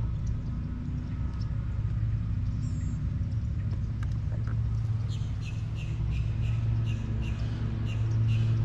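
A boat motor running steadily with a low hum, while birds chirp repeatedly over it in the second half.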